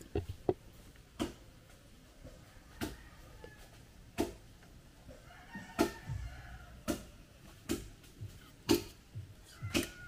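A string of sharp knocks or clicks at uneven intervals, roughly one a second, over faint chicken clucking in the background.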